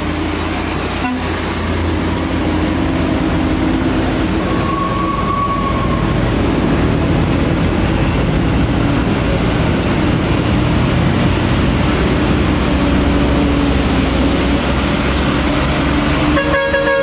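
Diesel truck and bus engines running under load on a steep uphill climb, with motorcycles in the traffic, making a steady rumble. Just before the end a vehicle horn sounds several notes at once.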